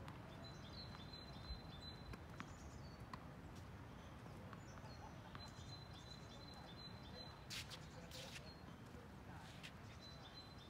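A few faint, sharp pops of tennis balls being struck and bouncing during a rally, the loudest pair about three-quarters of the way through. A small bird sings a short, high phrase three times over them.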